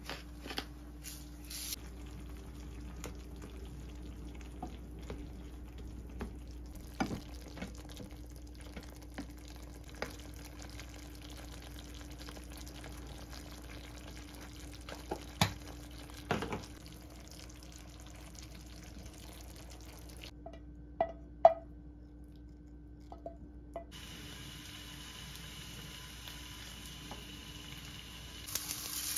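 Kitchen work sounds: scattered light clinks and knocks of utensils and cookware over a faint steady hum, with some dripping or trickling water.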